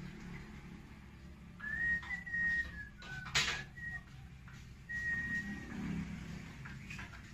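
A person whistling a few long, steady notes, with a single sharp knock about three and a half seconds in.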